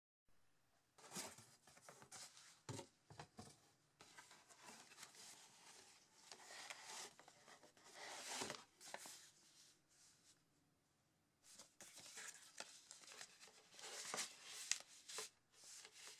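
Paper and cardboard rustling and scraping as a shipping box is unpacked by hand, with a black paper folder and printed cards being handled and slid out. The sound is faint and irregular, with small clicks, and goes quiet for about a second two-thirds of the way through.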